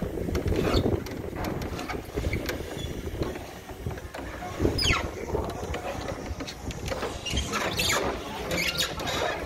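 Scattered knocks and clatter of work on a wooden roof frame, over the rumble of wind on the microphone, with one short falling squeak about halfway through.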